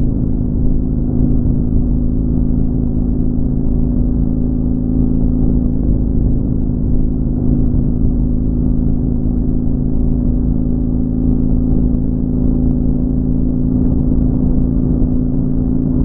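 Motorcycle engine running at a steady highway cruise, an even hum that holds one pitch, over a low rumble of road and wind noise.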